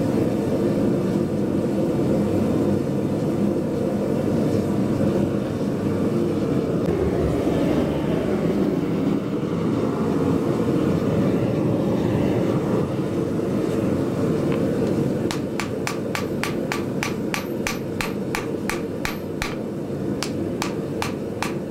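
Steady roar of the forge. About two-thirds of the way through, quick, light hammer blows on white-hot steel on the anvil begin, two or three a second, each with a high ring: forge welding the steel bit into the axe head.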